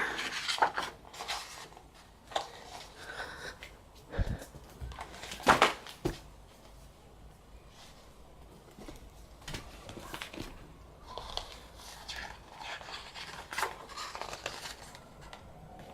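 Sporadic handling of paper album contents: light rustles and taps of pages and cards, with two louder knocks about four and five and a half seconds in.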